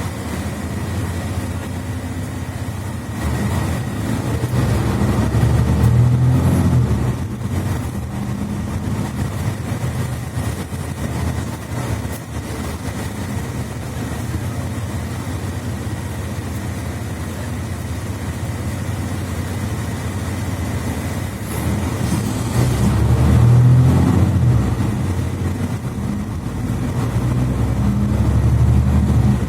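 Interior sound of a Mercedes-Benz Citaro C2 articulated bus on the move: low engine and driveline rumble through the Voith automatic gearbox. It swells louder three times: a few seconds in, about three-quarters of the way through, and near the end.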